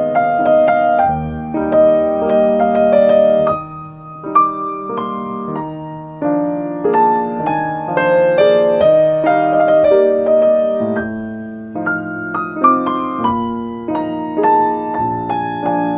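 Solo piano music playing gentle chords and melody, with a short lull about four seconds in.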